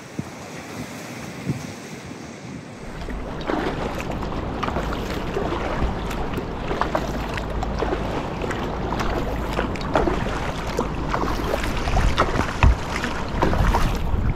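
Wind and sea waves washing on a rocky shore. About three seconds in the sound changes to louder, irregular splashing and slapping of sea water over a low rumble of wind on the microphone.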